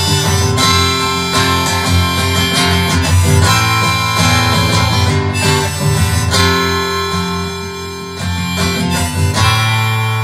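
Harmonica played in a neck holder over a strummed acoustic guitar, an instrumental break in a folk-rock song. Near the end a chord is left ringing and fades.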